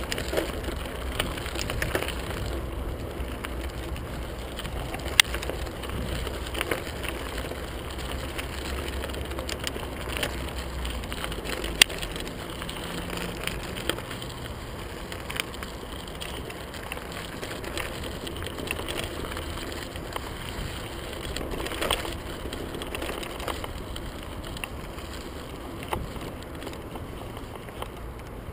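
Merida Matts TFS 800-D mountain bike rolling over a rough gravel and dirt track: tyres crunching on stones with the bike rattling and knocking over bumps, two sharp knocks standing out about five and twelve seconds in. A low wind rumble on the microphone, heavier in the first half.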